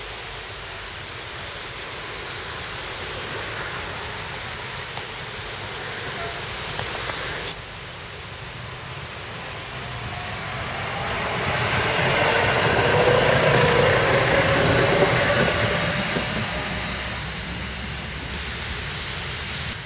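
Budapest Tatra T5C5 trams running on the rails. First a tram approaches with a hiss and rapid clicking. Then, from about eight seconds in, a second tram rolls close past with a whine over a low rumble, loudest in the middle and fading as it draws away.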